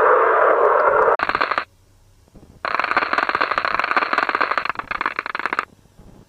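Spacecraft radio and plasma-wave data played as audio, the kind presented as a 'planet sound'. A steady rushing hiss cuts off about a second in. Then comes a short crackling buzz, a pause, and a longer buzz of rapid crackles lasting about three seconds.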